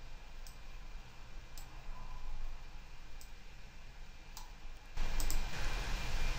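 A few faint computer mouse clicks over the first four seconds. About five seconds in, a steady hiss with a low hum starts: a speech-free stretch of a condenser-microphone voice recording played back, holding only its background noise.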